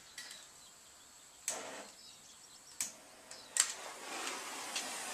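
Handheld gas torch being lit: three sharp igniter clicks, then from about three and a half seconds in a steady hiss of gas and flame that grows louder.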